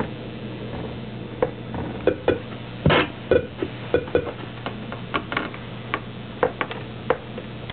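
Circuit-bent PC Junior toy computer giving a steady low hum with a scatter of short, sharp glitchy clicks and blips, starting about a second and a half in and loudest around three seconds, as its keys are pressed and knobs turned.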